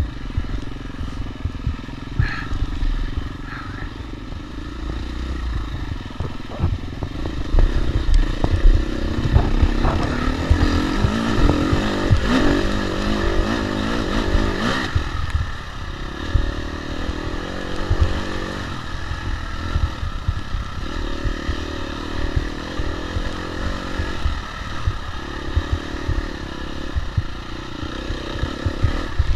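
Dirt bike engine revving up and down as it is ridden hard off-road, loudest and busiest about a third of the way in. A heavy low rumble of wind and bumps on the bike-mounted microphone runs underneath.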